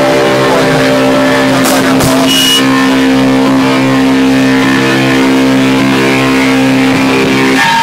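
Punk band playing live, recorded loud and distorted: a distorted guitar chord held and ringing, with two cymbal hits about two seconds in. It cuts off sharply just before the end.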